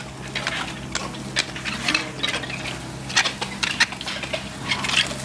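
Steel plastering trowels scraping and clinking irregularly on wet pool plaster, over a steady low hum.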